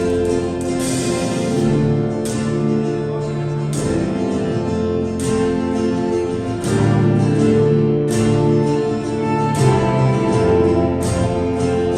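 Live band playing a song led by guitar, with sustained chords and a strong accented hit every second or two.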